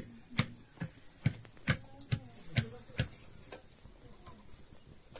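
Wooden plunger churning buttermilk in a tall metal can: steady knocks about twice a second, each a dull thump with a click, stopping about three seconds in.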